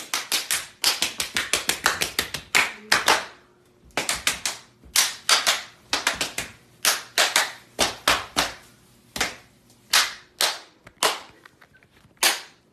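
Sharp hand slaps in quick runs, several a second, broken by short pauses and thinning out near the end.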